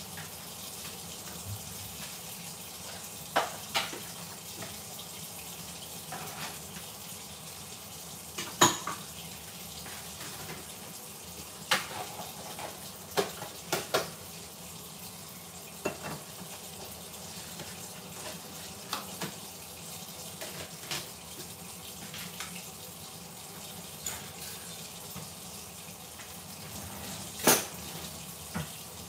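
Kitchen sounds: a steady watery hiss with about a dozen sharp clinks of cookware scattered through it, the loudest about eight and a half and twenty-seven and a half seconds in.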